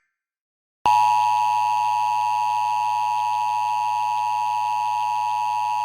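Near silence, then about a second in the two-tone Emergency Alert System attention signal starts abruptly and holds as a loud, steady, harsh tone. This is the alarm that announces an emergency alert message.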